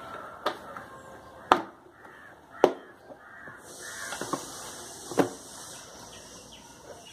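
Black hard plastic tool carry case being unlatched and opened: two sharp plastic snaps about a second apart as its latches release, then another knock a few seconds later as the lid is handled, with light rustling in between.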